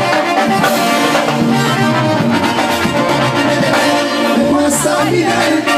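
Live Latin band music with keyboard, played loud and without a break.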